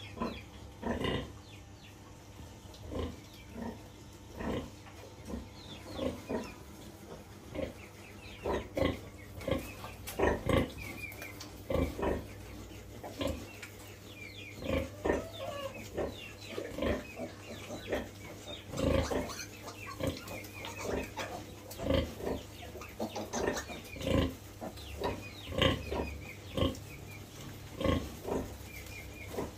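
Piglets grunting and squealing, short calls coming roughly once a second and more thickly in the second half.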